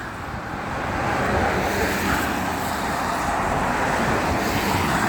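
Road traffic passing close by, a steady rush of tyres and engines that builds over the first second or so and then holds.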